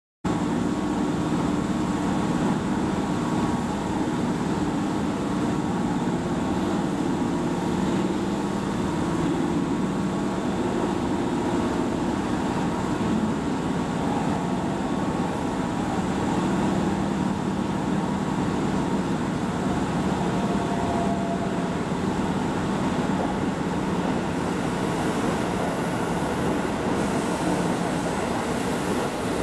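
Keihan 9000 series eight-car electric train running slowly into a station platform, a steady running noise of wheels and motors. High hiss rises near the end as it comes in.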